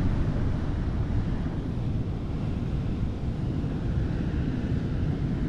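Wind buffeting the microphone in a steady low rumble, with sea surf behind it.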